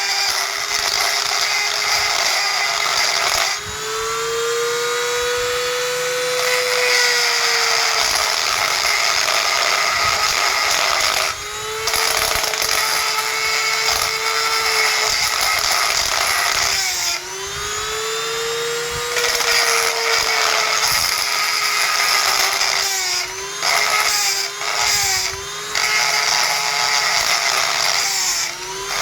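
Power grinder grinding away a rusted metal screw head, a steady motor whine with a harsh grinding hiss. The pitch sags under load. Twice it spins free, the hiss dropping out as the whine rises, and near the end it is pressed in several short touches.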